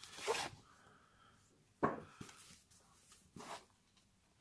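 A few faint scrapes and taps of a cardboard watch box being handled as its paper sleeve is slid off and its hinged lid opened, with a sharper tap about two seconds in.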